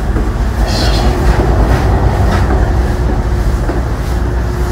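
Loud, steady low rumble of a ship's engine with a constant hum running through it, as heard on board a small car ferry.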